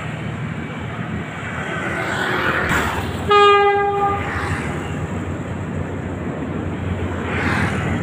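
Philippine National Railways train passing with a steady rumble, its horn sounding once in a short single-pitched blast a little over three seconds in.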